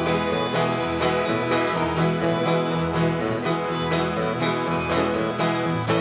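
Acoustic string band playing a bluegrass tune: acoustic guitar strumming a steady beat under fiddles, with a cello below.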